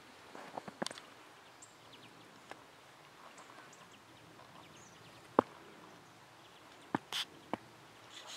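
Sparse, soft crunches of a cat's paws stepping through fresh snow, with a few sharp separate clicks, the sharpest about halfway through and a few more near the end.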